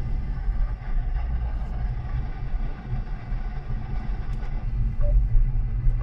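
Car cabin noise while driving on a wet road: a steady low engine and road rumble with tyre hiss.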